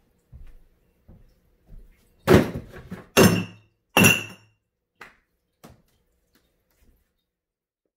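Glass wine bottles dropped into a plastic wastebasket: three loud clunks about a second apart, the last two with a glassy ring.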